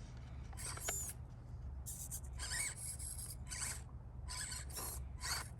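Axial SCX24 micro crawler's small electric motor and gearbox whining in a string of short bursts as it crawls, over a steady low hum.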